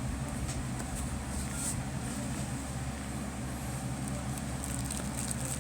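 Steady low background hum of room noise, with a few faint light handling ticks.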